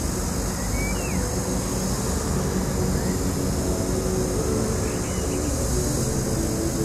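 Steady low rumble of background engine noise, with a couple of faint bird chirps about a second in and about five seconds in.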